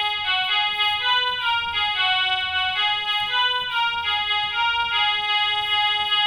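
Big Fun toy electronic keyboard playing a quick melody of short electronic-piano notes, one note after another.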